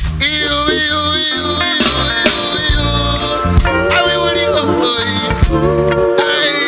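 Live band music with several voices singing held notes together over bass guitar and drum kit.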